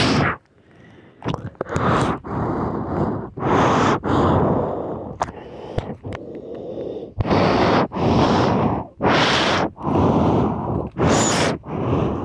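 A person's loud breaths close to the microphone, one roughly every second, with a few sharp clicks between them.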